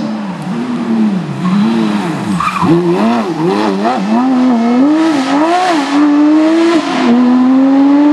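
Porsche 911 GT3 rally car's flat-six engine revving hard on a stage, its pitch swooping up and down rapidly with throttle lifts and gear changes, then holding a steady note near the end. A rush of tyre noise comes in the middle.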